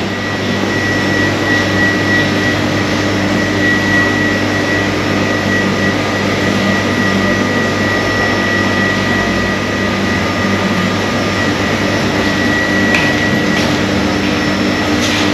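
Steady mechanical hum and fan-like rushing of a butcher shop's refrigeration and ventilation machinery, with a thin high whine running through it.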